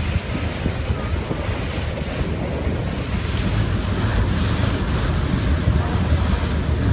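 Wind buffeting the microphone over the rush and splash of water breaking along the hull of a moving boat.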